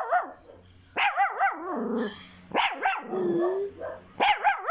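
Small long-haired dog howling in several short bouts, each cry wavering up and down in pitch, with brief quiet gaps between. It is the dog's distress at fireworks.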